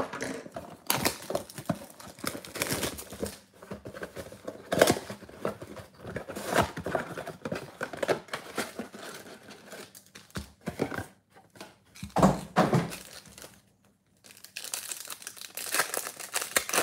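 Cardboard trading-card box being torn open and handled, with rustling and tearing as the packs are slid out, and a thump about twelve seconds in. Near the end a card pack's wrapper crinkles in the hands.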